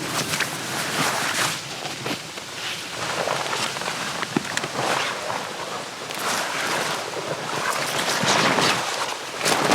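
Continuous irregular rustling and crackling noise, swelling louder several times, especially near the end.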